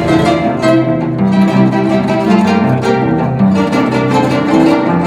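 Paraguayan harp music: a quick run of plucked notes over lower bass notes.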